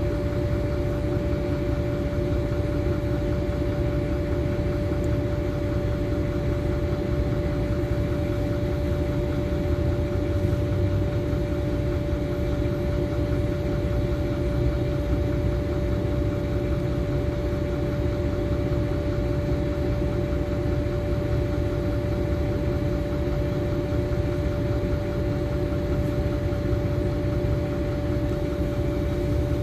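Diesel engine of a LiAZ-5292.21 city bus idling while the bus stands still, heard from inside the passenger cabin: a steady low rumble with a constant hum-like tone above it.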